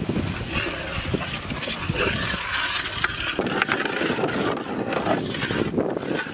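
Cooking noise: irregular clicks and scrapes of utensils over a steady hiss, with the texture changing about three seconds in.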